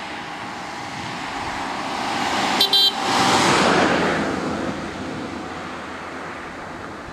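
A car passes close by, its road and engine noise swelling and then fading away, with two short horn toots just before it is at its loudest.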